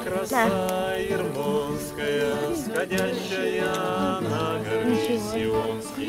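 Several voices singing together to strummed acoustic guitars, with long held notes.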